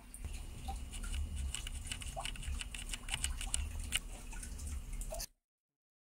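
Typing on a Perixx PeriBoard-328 mechanical keyboard with Kailh Brown switches: a quick, uneven run of key clicks that stops abruptly a little over five seconds in.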